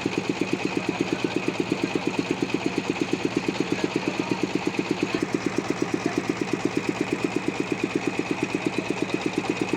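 Sawmill engine running steadily at a slow, even beat of about seven pulses a second, with a thin steady high whine above it.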